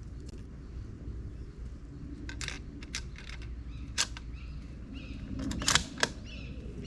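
A run of sharp metallic clicks and clacks, a few at a time, typical of the bolt of a .30-06 M1903A3 bolt-action rifle being worked between shots. Birds chirp faintly in the background.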